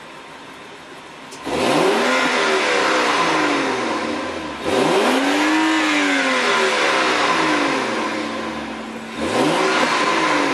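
BMW 535i F10's turbocharged 3.0-litre inline-six heard at the exhaust tailpipe, idling quietly, then free-revved three times while standing. The first rev comes about a second and a half in, a second climbs and falls back near the middle, and a third comes near the end.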